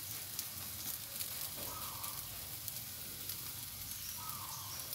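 Egg-dipped bread slices frying in butter in a nonstick pan, sizzling steadily with small crackles.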